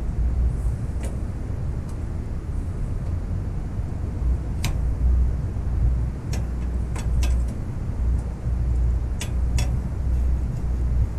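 Sharp metal clicks as brake cables and their fittings are handled and hooked into a surrey bike's handlebar brake lever mechanism: one about four and a half seconds in, a quick cluster a couple of seconds later, and two more near the end. Under them runs a steady low rumble.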